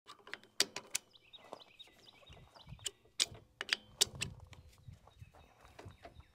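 A handful of sharp clicks and knocks at irregular intervals, with faint bird chirps in the background. No engine is running.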